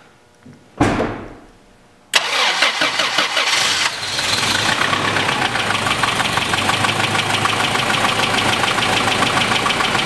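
A sharp knock about a second in, then a car engine comes in suddenly about two seconds in and runs steadily at idle.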